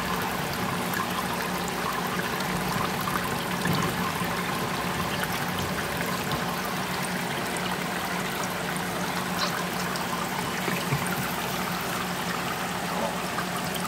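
Aquarium filter return water trickling and splashing steadily into the tank, with a low steady hum underneath.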